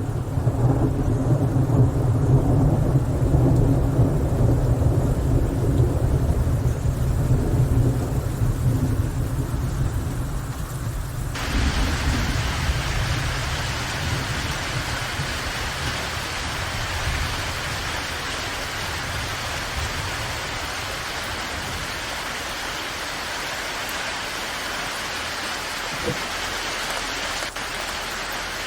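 Thunder rumbling low and long under rain; about eleven seconds in it cuts abruptly to steady rain hiss alone.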